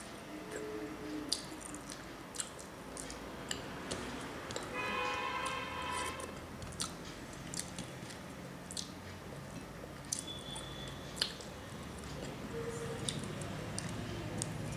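Close-up eating sounds: wet chewing and lip smacks with many sharp mouth clicks, and fingers squishing gravy-soaked food on a steel plate. About five seconds in, a steady pitched tone sounds for a second and a half.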